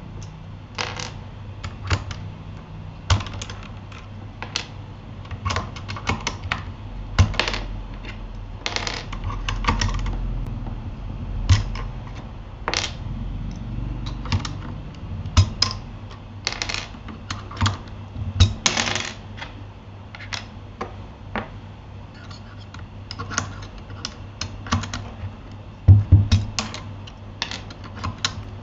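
Irregular plastic clicks and clacks from a Keychron K8 mechanical keyboard, with a low steady hum underneath.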